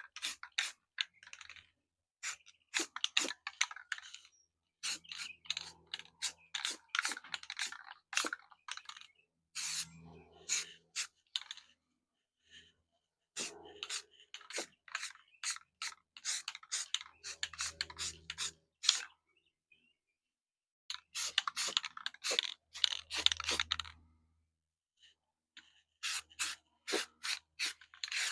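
Runs of quick, sharp clicks and rasping scrapes, a few seconds at a time with short pauses between, over a faint low hum.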